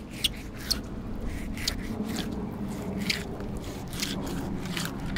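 A knife scraping and slicing between the scaly skin and the flesh of a snakehead fillet as the skin is cut away, a short sharp rasp about every half second to second. A low steady hum runs underneath.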